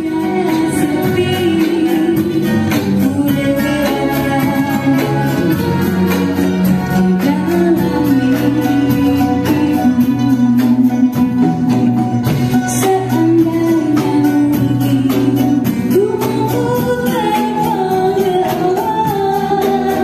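A woman singing lead through a microphone and PA with a live acoustic band of ouds, violins and guitars, over a steady, fast percussion beat.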